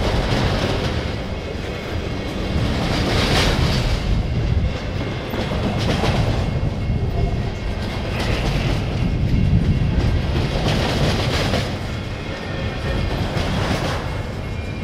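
Double-stack intermodal container train rolling by on well cars: steady wheel-on-rail rumble and clatter, swelling every two to three seconds.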